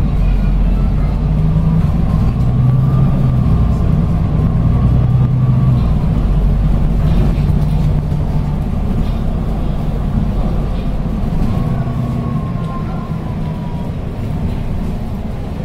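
Interior sound of a Volvo B9TL double-decker bus's diesel engine as the bus pulls away and drives on. The engine's low drone shifts in pitch, and a fainter whine rises and falls twice.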